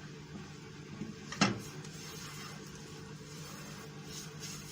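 Mushrooms and flour cooking in a pan on a gas stove, a faint steady background with one sharp knock of a utensil against the pan about a second and a half in.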